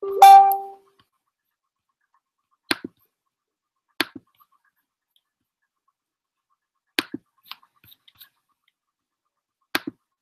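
A short, bright tone lasting about half a second, then sharp clicks, mostly in quick pairs, every one to three seconds.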